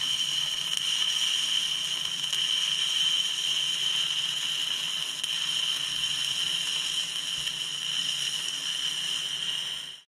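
Stick-welding arc burning on an Eagle 614 manganese buildup electrode: a steady hiss that cuts off suddenly just before the end.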